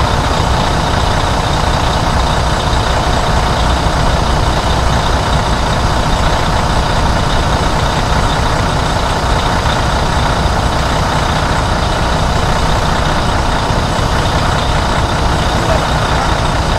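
Freightliner Cascadia's diesel engine idling steadily, heard from underneath the truck, while it builds air pressure in the tanks to test a newly fitted pressure protection valve.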